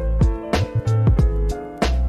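Background music with a steady beat: deep kick drums with a quickly falling pitch under sustained keyboard chords.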